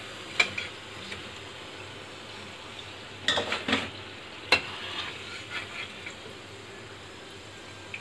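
Gujiya deep-frying in hot oil in a kadhai with a steady sizzle. A metal spoon clinks and scrapes against the pan a few times, loudest about three and a half to four and a half seconds in.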